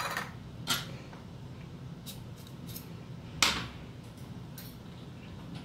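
A few short metallic clinks and taps as stainless-steel diamond sieve rings and a mesh sieve plate are handled and fitted together, the loudest about three and a half seconds in with a brief ring.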